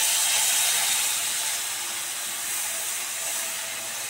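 Batasha sugar syrup poured through a strainer into a hot wok, sizzling with a steady hiss that eases off slightly toward the end.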